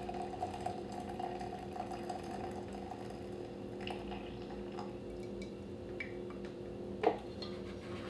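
Single-serve coffee brewer dispensing hot water into a ceramic mug: a steady machine hum with water running. There is a short knock about seven seconds in.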